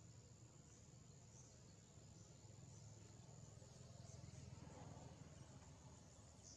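Near silence with a faint, steady high-pitched insect trill that flickers now and then, over a low background rumble.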